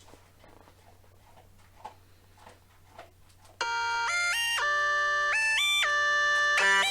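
Loopstation music: after a quiet stretch of faint soft clicks, a loud, buzzy melody of held notes enters suddenly about three and a half seconds in, with several lines stepping up and down in pitch at once. It is a beatboxer's voice looped and effect-processed on a Boss RC-505 Mark II loopstation.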